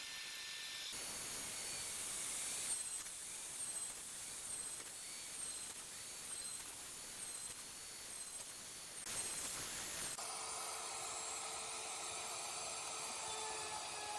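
A wooden CNC machine at work, its motors giving a high whine that dips and recovers about once a second as the machine repeats the same short move. The sound comes in a few short pieces with abrupt changes between them.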